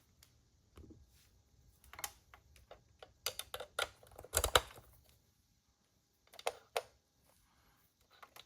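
Guitar cable plugs and effects pedals being handled while patch connections are made: scattered clicks and knocks, loudest in a cluster about four and a half seconds in.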